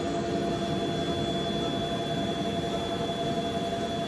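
Built-in electric air pump of an inflatable bounce house running steadily as it blows up the vinyl, an even rush of air with a constant whine.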